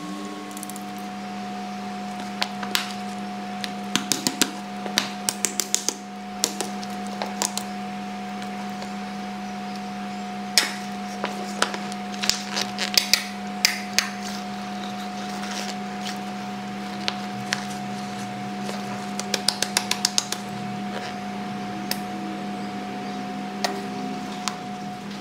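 A steady low hum throughout, with clusters of quick sharp clicks and taps from a squeeze bottle of mayonnaise being handled and squeezed over a ceramic bowl.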